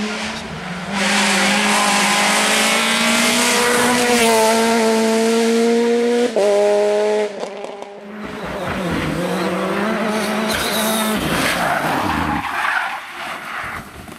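Rally car engines driven flat out on a closed stage, running at high revs with the pitch jumping at gear changes. One car runs through the first half, and after a cut about eight seconds in another car is heard.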